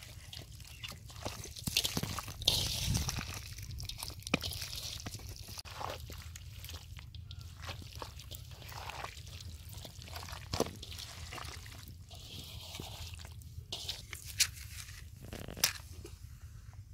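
Hands kneading and squishing a whole chicken in a wet yogurt-and-spice marinade in a metal bowl: irregular wet squelches and slaps.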